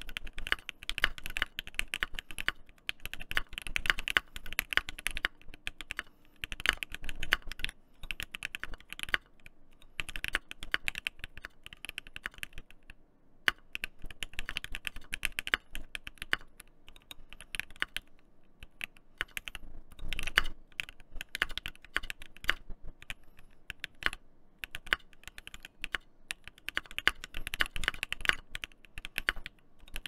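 Typing on a KBDFANS D84 gasket-mount mechanical keyboard with an aluminium plate, lubed and filmed L&F Lavender switches and ASA-profile keycaps: fast runs of keystrokes broken by short pauses.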